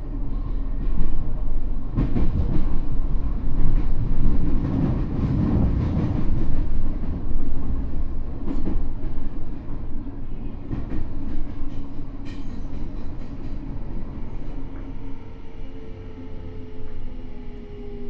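Tokyo Metro N05 series electric train running, heard from inside the car: wheel and rail rumble with knocks and clicks over rail joints and points, loudest a few seconds in. From about 15 s in, the Hitachi IGBT inverter and traction motor tones glide slowly downward as the train decelerates toward a stop.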